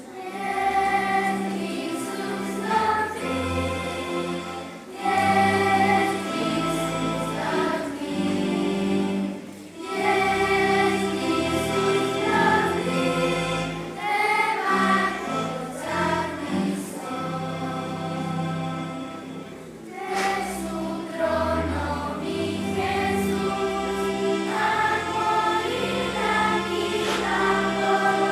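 School choir singing, in phrases a few seconds long with brief breaths between them.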